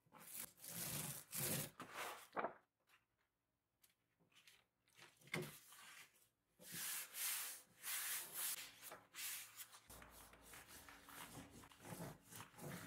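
Dry rubbing and scraping strokes from applying wood veneer: a paint roller spreading white glue on a hardboard panel, hands smoothing a thin wood veneer sheet over it, then a clothes iron sliding over the veneer to set the glue. The strokes come in short bursts, with a near-quiet pause about three seconds in.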